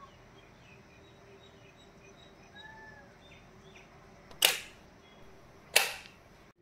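Two sharp, shutter-like click sound effects of a subscribe-button animation, just over a second apart, each fading quickly. Faint chirping sits underneath.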